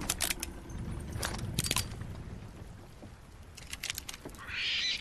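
Several flintlock pistols being drawn and cocked: a run of sharp metallic clicks and rattles in three loose groups, with a short hiss near the end.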